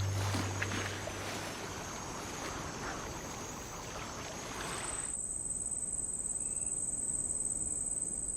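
Night-time tropical forest ambience with insects trilling. A rushing background noise with a steady high insect trill gives way abruptly, about five seconds in, to a quieter background under a single steady, high-pitched insect trill.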